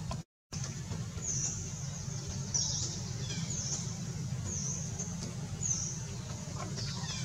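A bird calling with short, high chirps that fall in pitch, repeated about once a second, over a steady low hum; the sound cuts out completely for a moment near the start.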